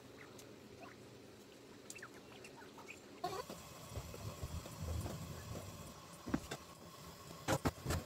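Young quail giving faint, short chirps. About three seconds in, the sound changes to a rougher background with a few sharp knocks and clatter, loudest near the end.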